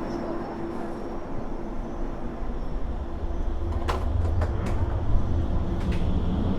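Steady low rumble of a moving vehicle, growing heavier about three and a half seconds in, with a few sharp clicks.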